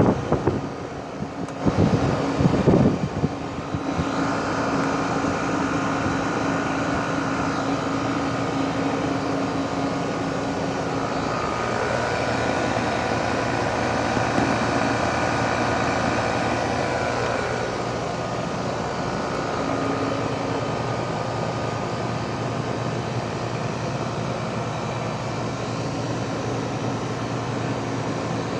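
Rheem 4-ton heat pump running in cooling mode: a steady hum of compressor and condenser fan with a few constant tones in it. A few loud, low bumps in the first three seconds.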